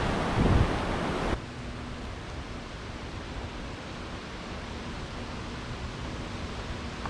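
Strong wind gusting across the microphone over the sound of surf, cutting off suddenly about a second in to a quieter, steady hiss with a faint low hum.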